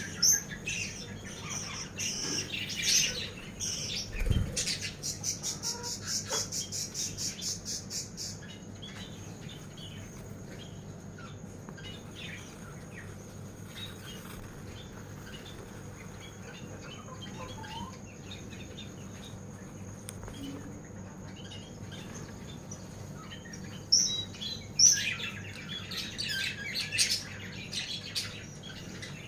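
Small birds chirping and twittering, with a fast, even trill from about four to eight seconds in. A quieter middle stretch holds faint scattered chirps and a thin steady high tone, then dense chirping returns near the end.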